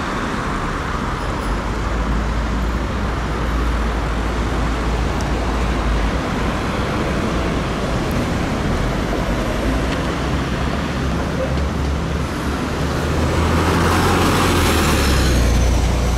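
Street traffic at a junction with a steady low engine rumble as an articulated city bus drives through. Near the end a car passes close by, the loudest moment.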